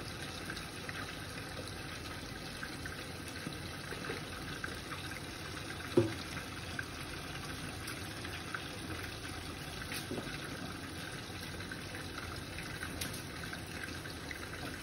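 Fish frying in hot oil: a steady sizzle with light crackles, and one sharp knock about six seconds in.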